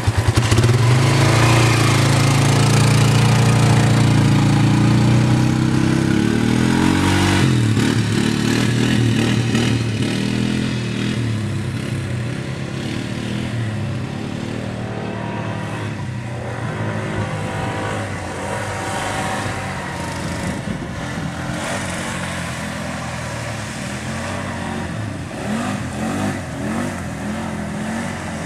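An ATV engine running and revving under load, its pitch rising and falling with the throttle. It is loudest at the start and grows quieter over the first ten seconds or so.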